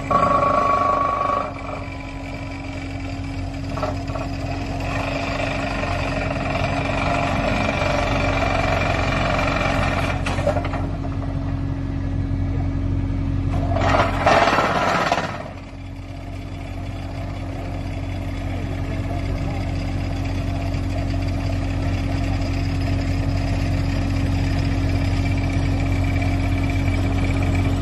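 Excavator-mounted hydraulic pile driver running with a steady, loud hum, with a louder, noisier surge lasting about a second and a half around the middle.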